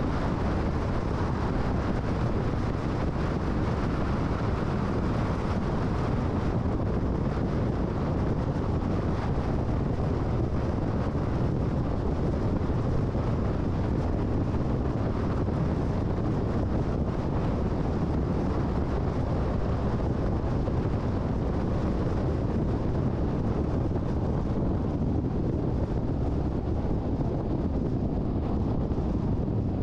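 Steady road and wind noise of a car driving along an interstate highway, a constant rush without changes or distinct events.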